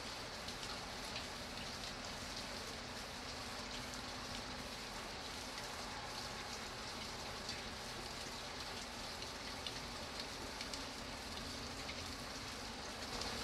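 Steady rain falling, an even hiss with many small drops ticking through it.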